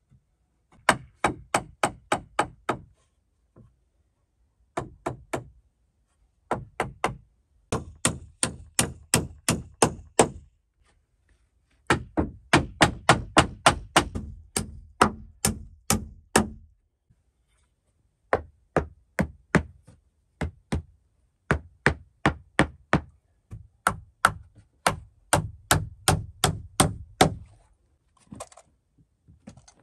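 Hammer blows nailing wooden boards to the cabin's timber frame: runs of sharp strikes about three a second, broken by short pauses.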